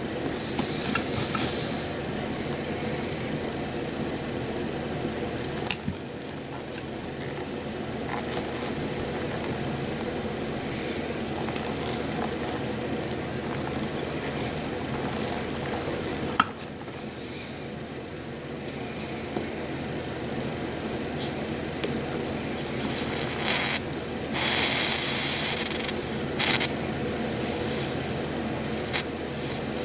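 Solder and flux sizzling and hissing in short patches under the tip of a 907-type soldering iron while an oxidized chip is being tinned, with scattered small clicks of the tip on the board over a steady hum. The longest, loudest hiss comes a little after two thirds of the way through.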